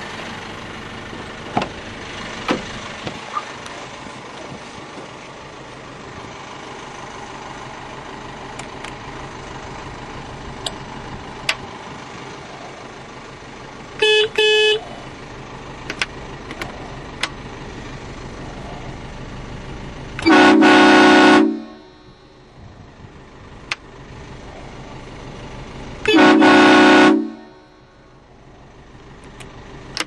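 A vehicle's stock horn gives two quick beeps, then an HB4H train horn sounds two loud blasts of about a second each as a multi-tone chord. The horns are switched between on a relay and toggle-switch panel, and scattered clicks sound over a steady background rumble.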